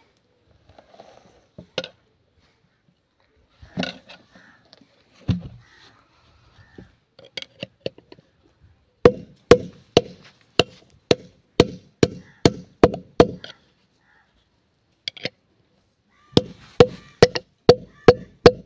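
Hammer blows on a steel rod driven through a John Deere tractor's front wheel hub to knock out the old bearing. A few scattered knocks come first. Then come two runs of sharp metallic strikes, about two a second, each with a short ring.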